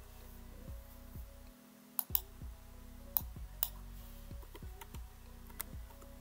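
Quiet background music with plucked notes, over which a computer keyboard and mouse click sharply about five times as numbers are typed into form fields.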